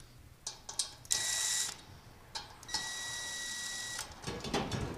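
A handheld power tool runs in short bursts with a steady whine, driving in the brake rotor bolts on a motorcycle wheel. There are small clicks between the runs, and a low clatter of handling near the end.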